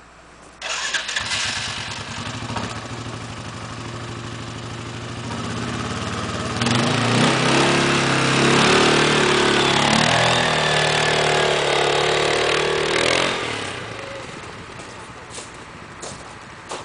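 ATV engine on Tiger Trax track conversions running, then revving hard under load from about six seconds in as the machine climbs a steep snow pile. It eases back to a lower running level about seven seconds later.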